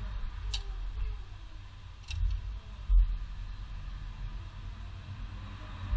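Crankcase-ventilation hoses and plastic fittings being handled and fitted in an engine bay: two light clicks, then a dull thump about three seconds in, over a low rumble.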